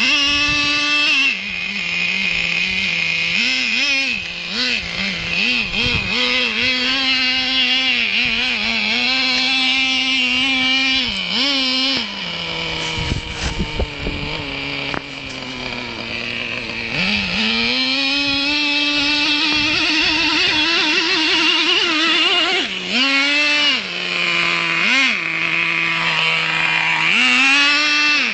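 Traxxas T-Maxx RC monster truck's small nitro engine revving up and down over and over under throttle as the truck climbs, settling to a lower, steadier pitch for a few seconds in the middle.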